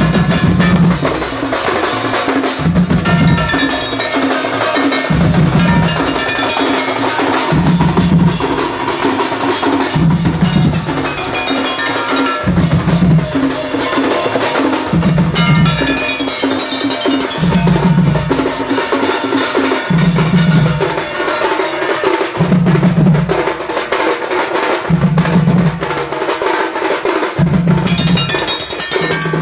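Odia Singha Baja percussion band playing: fast, dense drumming and clanging from a rack of struck metal gongs, with a deep low note recurring about every two and a half seconds.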